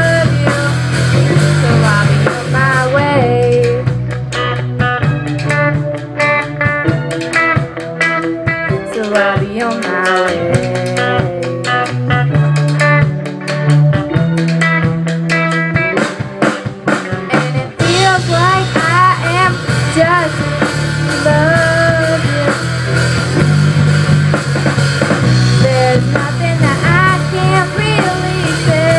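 A young live band plays a pop-rock song through a PA: drum kit, electric guitars, bass and keyboard, with a girl singing lead. A few seconds in, the bass drops out and leaves drums, keys and voice. About halfway through, the full band comes back in.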